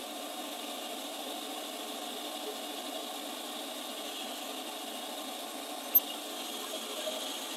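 Milling machine spindle running steadily with a boring bar in a steel swing arm's needle bearing bore, on a light trial pass to true up a bore that welding has pulled out of round. The cutter is at most just starting to touch. A single sharp click comes about six seconds in.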